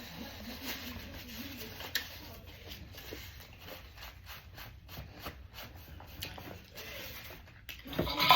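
Eating and handling sounds at the table: scattered soft clicks and rubbing, with a louder rustling burst near the end.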